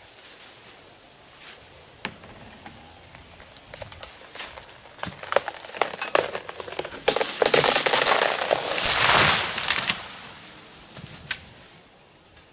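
A poplar tree giving way: a string of sharp wood cracks and snaps, then, about seven seconds in, a loud crash of the trunk and a metal ladder stand coming down through the branches, fading over a couple of seconds.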